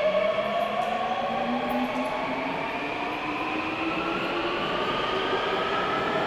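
Seoul Metro Line 3 subway train pulling out of the station, its traction motor whine rising steadily in pitch as it accelerates, several tones climbing together over the rumble of the wheels.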